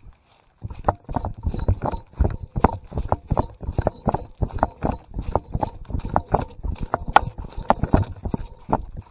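Rapid, uneven thumps of a running dog's paws on wet ground, with the camera strapped to the dog knocking and jolting at each stride. They start about half a second in and go on at three or four a second.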